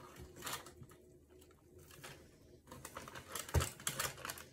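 Light clicks and taps from cooked chicken being cut and pulled off the bone, getting busier about three seconds in, with one soft thump just after.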